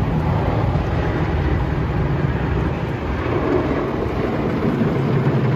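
Automatic car wash heard from inside the car: rotating brushes and water spray sweep over the windows and bodywork in a loud, steady, deep rushing noise.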